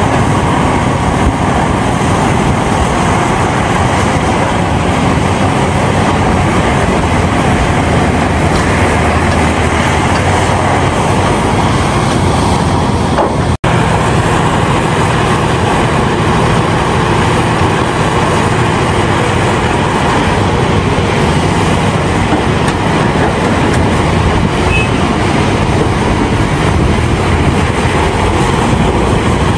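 CAT 352F hydraulic excavator working under load, its diesel engine running loud and steady. The sound drops out for an instant about halfway through.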